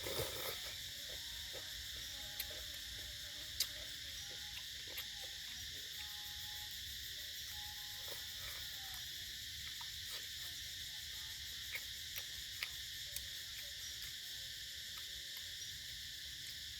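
Steady, high-pitched chorus of insects, with a few sharp clicks scattered through it.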